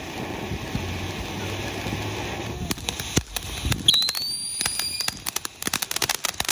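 Black Cat Blue Lagoon firework fountain, hissing steadily as it sprays sparks. Under three seconds in it switches to a rapid string of sharp crackling pops, with a brief rising whistle about four seconds in.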